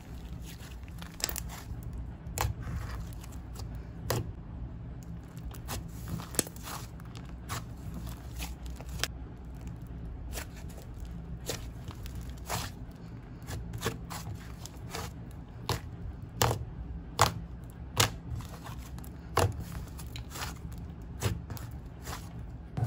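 Thick, glossy clay slime being squished and stretched by hand, giving irregular sharp clicks and pops over a low steady hum.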